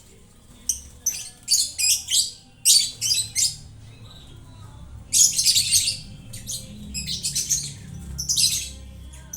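Caged lovebirds calling in shrill, harsh chirps and squawks, in quick clusters of short calls with a longer burst of chatter around the middle.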